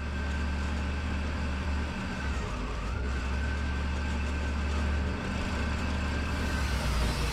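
Wood-Mizer LT40 sawmill's engine running steadily, with a thin whine that dips briefly about two seconds in.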